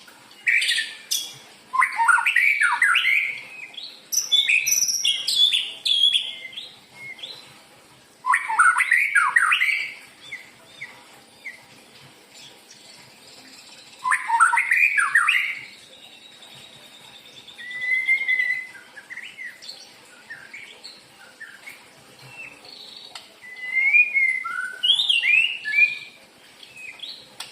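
White-rumped shama (murai batu) singing: bursts of varied whistled and chattering phrases, separated by pauses of a few seconds.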